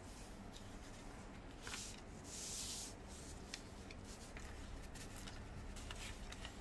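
Origami paper rustling as hands handle and fold it: a short swish, then a longer, louder sliding swish about two and a half seconds in, followed by small crackles and taps as the sheet is folded and creased.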